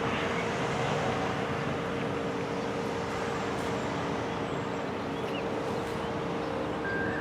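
Steady outdoor road-traffic noise with a constant low hum running underneath.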